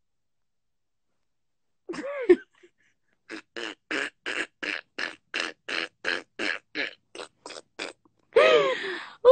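A woman laughing hard: after about two seconds of silence, one short voiced sound, then a long run of short, even laugh pulses, about three and a half a second, breaking into a louder high-pitched squeal near the end.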